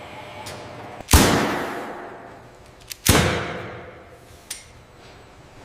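Two sudden sharp bangs about two seconds apart, each trailing off over about a second.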